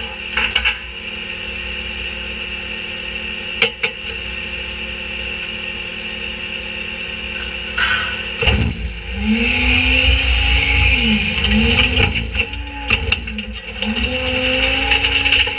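Diesel engine of an Autocar garbage truck with a Leach rear-loader body idling, with a couple of sharp knocks as items hit the hopper. About eight seconds in, the engine revs up and down in several rising and falling swells as the hydraulic packer blade starts its cycle.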